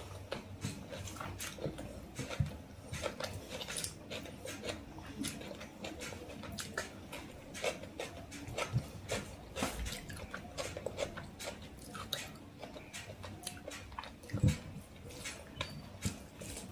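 Close-up wet chewing and lip-smacking of a mouthful of rice and chicken curry, many small mouth clicks in quick succession, with one louder smack near the end.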